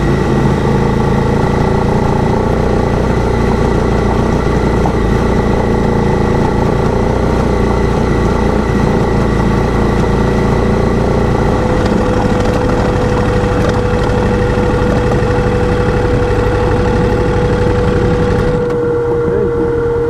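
Motorcycle engine running steadily while riding on a gravel road, with wind and road noise on the helmet mic. Near the end the rushing noise drops away and the engine note stands out more plainly.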